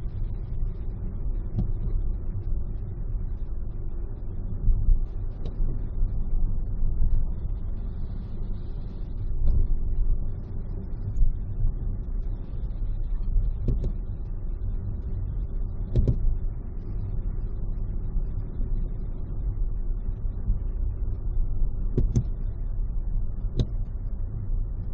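Steady road and engine rumble of a car at freeway speed, heard from inside the cabin. Over it come several sharp bangs spread through: fireworks bursting overhead.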